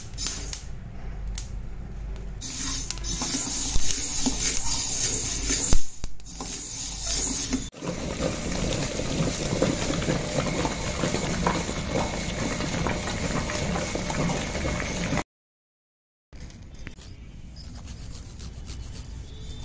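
A metal spoon scraping and stirring dry fenugreek seeds in a steel pan, as they are roasted for pickle. Then an electric grinder runs steadily, churning thick red chilli paste. After a brief silence, ginger is rasped across a steel grater.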